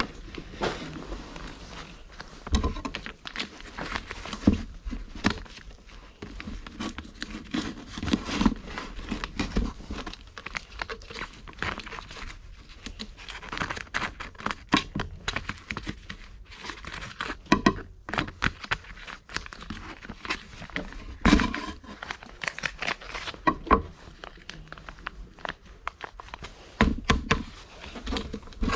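Cats eating dry kibble: irregular crunching and small clicks of chewing, with pieces knocking on a plastic tray and an occasional dull knock.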